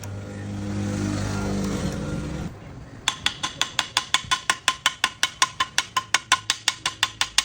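Motorcycle engine running, getting louder over the first second, then cutting off about two and a half seconds in. About half a second later comes an even, fast ticking beat of about five ticks a second.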